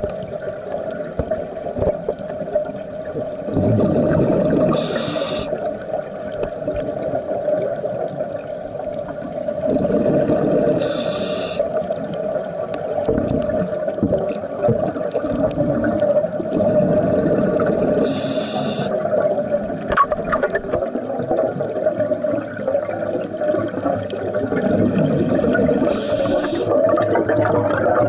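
Scuba diver breathing through a regulator underwater: a short hiss on each inhalation and a bubbling rush of exhaled air, repeating about every seven to eight seconds over a steady hum.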